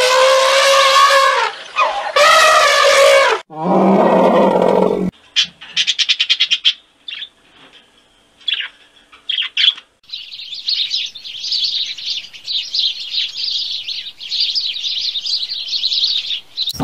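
An elephant trumpets twice, loud pitched blasts over the first few seconds, followed by a coarser, lower call. A blue-and-yellow macaw then gives scattered short clicks and squawks. From about ten seconds in, a flock of house sparrows chirps densely and without pause.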